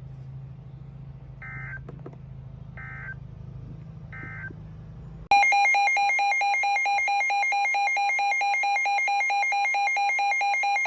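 NOAA Weather Radio Emergency Alert System tones. First come three short warbling bursts of SAME digital data, the end-of-message code, over a low radio hum. About five seconds in, the loud, steady EAS attention alarm tone begins.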